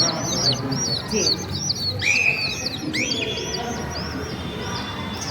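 A flock of small birds chirping and twittering together, quick rising-and-falling chirps several a second, with a couple of longer calls about two and three seconds in; the chirping thins out toward the end.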